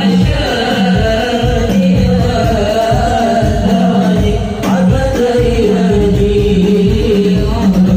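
Hadroh music: frame drums beating a steady, fast rhythm, about three strokes a second, under a voice singing the melody, loud through a sound system.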